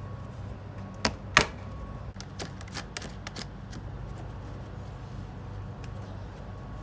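Two loud sharp clicks about a second in, then a run of lighter clicks and taps, over a low steady hum.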